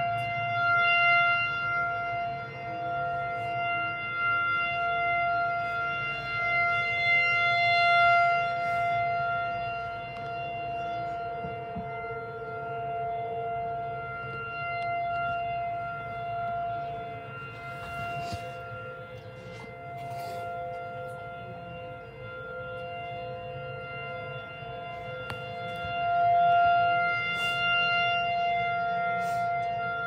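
Outdoor tornado warning sirens sounding, holding one steady pitch and slowly swelling and fading in loudness.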